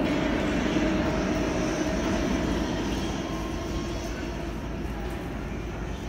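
R160 subway train pulling away down the tunnel. Its rumble and hum fade steadily as it recedes.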